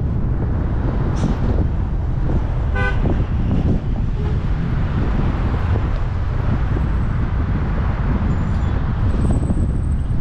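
Steady low road and wind rumble from a car driving in traffic, with one short car horn toot about three seconds in.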